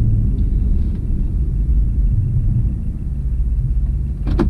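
Low, steady engine and road rumble inside the cabin of a moving truck with a turbocharged LS V8 swap, easing off slightly, with a short burst of clicks near the end.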